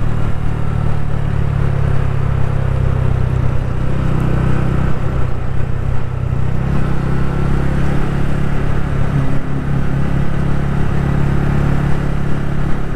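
TVS Ronin 225cc single-cylinder motorcycle engine running steadily while riding at speed.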